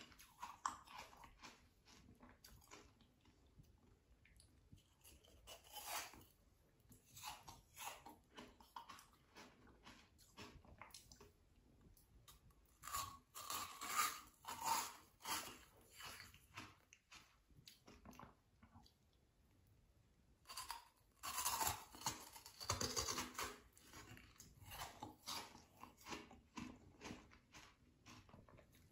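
Crunching and chewing of an ice pop of frozen cider, still at a sherbet-like icy stage, in irregular crackly bites. The bites come in clusters, loudest about halfway through and again about three quarters through.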